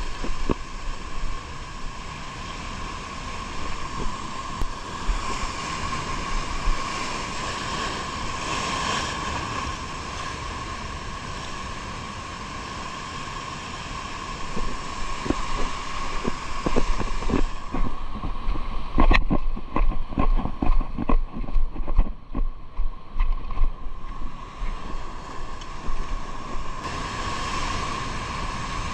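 A boat engine running steadily over wind and water noise, with a run of irregular knocks and thumps about halfway through.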